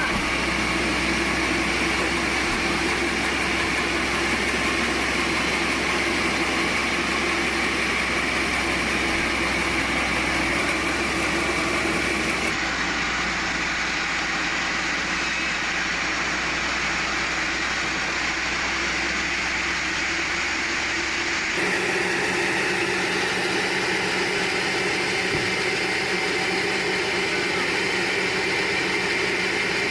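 Sawmill machinery running steadily: an engine-like drone with a hiss, its tone changing abruptly about twelve seconds in and again about twenty-two seconds in.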